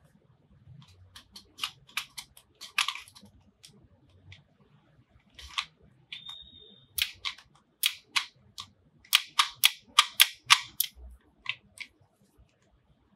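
Sharp plastic clicks from a Baseus Rotation universal travel adapter as its plug slider and body are worked by hand, coming in two quick runs of many clicks, with a brief high squeak about six seconds in.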